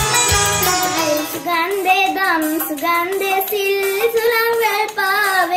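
A short instrumental intro with drum strokes ends about a second in, and a young girl then sings a Sinhala Buddhist devotional song (bodu bethi gee) alone.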